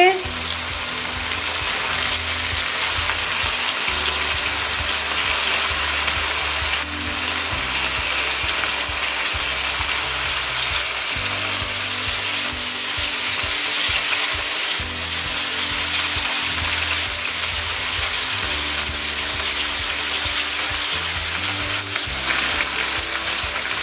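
Marinated chicken tikka skewers shallow-frying in hot oil in a frying pan: a steady, dense sizzle.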